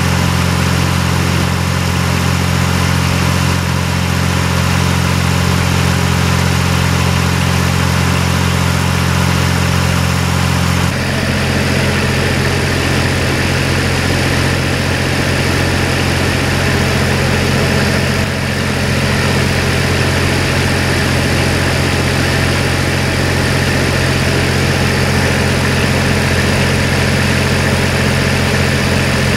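A vehicle engine idling steadily, a deep, even hum whose tone changes slightly about eleven seconds in.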